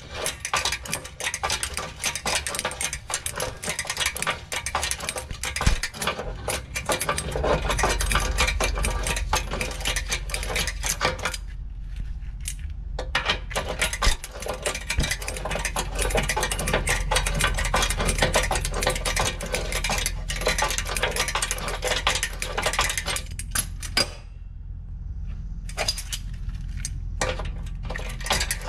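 Reciprocating saw blade cutting through a seized steel control arm bolt, a fast, rattling stroke that stops briefly twice and starts again.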